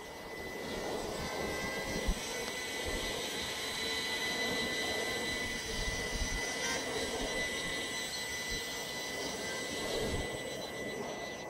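Walkera QR LadyBird micro quadcopter flying low: its four small electric motors and propellers give a steady high-pitched whine.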